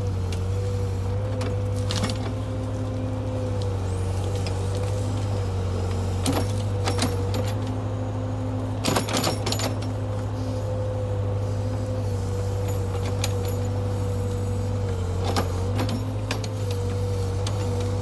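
Case backhoe's diesel engine running steadily under load, a low hum with a slightly wavering whine on top, as the rear backhoe bucket digs into brush and ground. Several sharp knocks and cracks of the bucket and breaking branches, loudest about nine seconds in.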